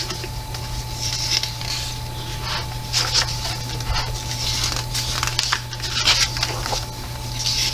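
Thick paper pages of a coloring book being turned by hand, rustling in several short swishes over a steady low hum.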